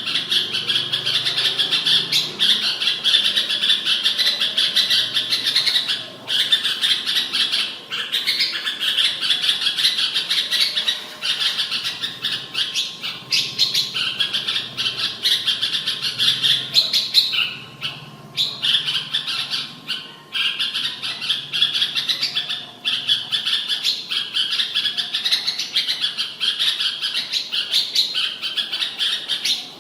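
Red-whiskered bulbul singing: rapid, almost unbroken chattering song, high-pitched, with short pauses every few seconds.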